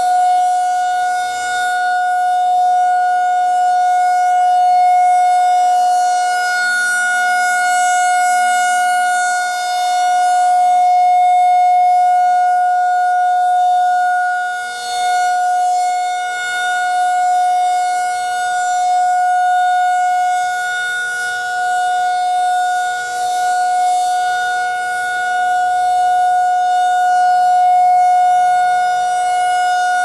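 Federal Signal 2001-SRN 12-port DC tornado siren sounding a steady, unwavering tone during a siren test. The loudness swells and fades as the rotating horn sweeps toward and away.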